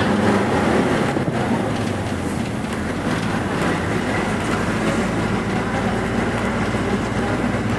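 Engine and road noise of a moving road vehicle heard from inside its cabin: a steady drone with a low engine hum.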